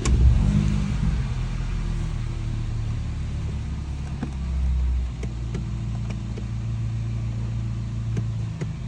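Mercedes-Benz A-Class A200's 1.6 petrol engine starting up and then idling steadily, swelling slightly about halfway through.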